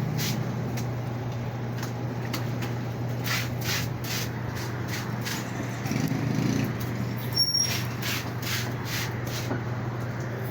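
Panasonic fully automatic washing machine running: a steady low motor hum with repeated short swishes of water and laundry.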